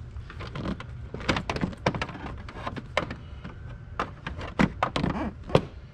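Irregular light clicks, taps and knocks of hands handling keys and parts around an open motorcycle seat compartment, with a sharper knock near the end.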